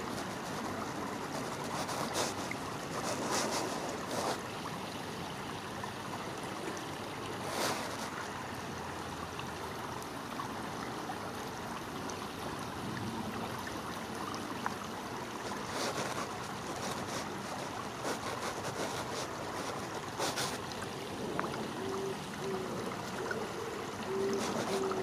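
Shallow river water flowing over rocks: a steady rushing and gurgling, with a few brief brighter splashy surges.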